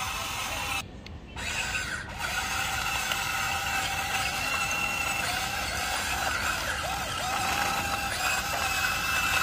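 Huina RC excavator's electric motors and gearboxes whining as it drives on its tracks and works its arm, the pitch wavering as the controls change, with a brief drop-out about a second in.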